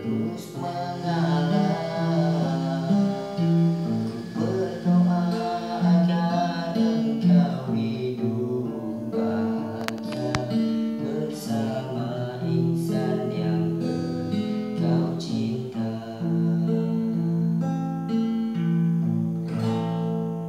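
Nylon-string classical guitar played, sounding a run of sustained chords.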